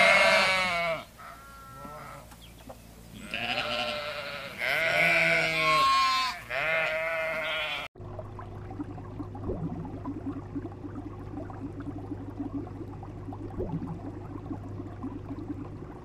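Sheep bleating, five long wavering bleats one after another, cut off abruptly about eight seconds in. A steady low hum with a fluttering drone follows to the end.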